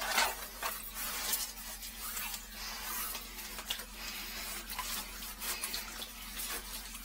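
Water dripping and splashing in a sewer drain: irregular splashes over a steady hiss.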